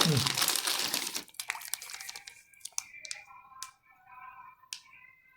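Plastic packaging crinkling for about a second, then quieter, with a few sharp clicks and faint steady tones in the background.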